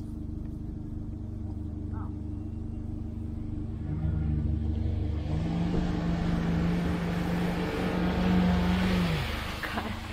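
An off-road vehicle's engine revs up about four seconds in and is held at high revs for about four seconds with a rising rush of noise, then drops away near the end, over a steady engine hum.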